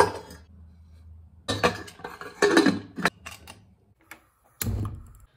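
Pressure cooker lid being fitted and closed, with a few metal clatters and knocks, then a small click from a stove knob being turned.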